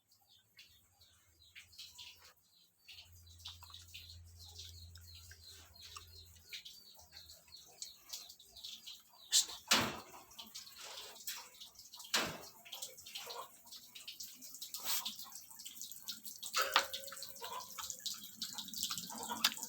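Civet chewing coffee cherries: wet, irregular smacking and clicking mouth sounds that grow busier partway through, with a few sharper cracks.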